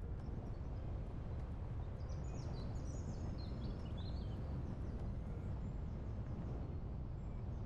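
Several short bird chirps, a second or two into the clip and lasting about two seconds, over a steady low rumble of wind.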